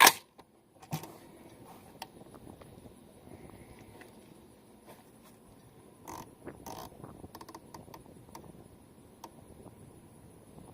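A 16-inch AR-15 carbine firing a single .223 shot at the very start, followed by a quieter stretch of small clicks and rustles.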